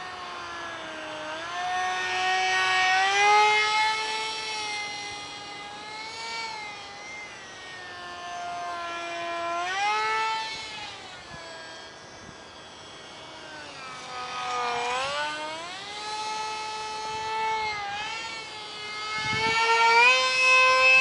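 Ultra micro RC jet's small electric motor and propeller whining in flight, the pitch sliding up and down several times as it flies around.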